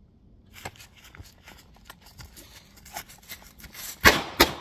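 Smith & Wesson 686 .357 Magnum revolver fired twice in quick succession near the end, the shots about a third of a second apart. Before them come a few seconds of rustling and small clicks as the revolver is drawn one-handed from a stiff leather holster.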